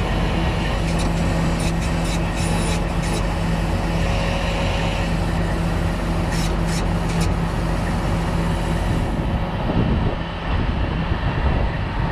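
Heavy truck's diesel engine running steadily, with a few light clicks over it; about nine seconds in the steady engine tone drops away and a rougher low rumble is left.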